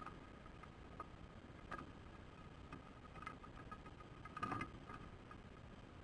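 Faint, short high peeps repeating irregularly from osprey chicks food-begging while an adult feeds them fish in the nest, with a few light clicks and a louder brief scuffle and cluster of peeps about four and a half seconds in.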